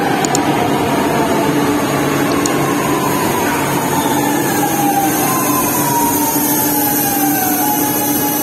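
Chennai Metro electric train moving along the platform: a loud, steady rumble of wheels and running gear, with the traction motors' whine slowly falling in pitch as the train slows.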